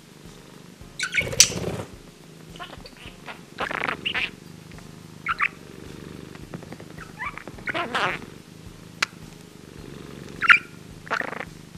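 Scottish Straight cat purring steadily, with a budgerigar's short chirps and chatter breaking in about eight times over the purr.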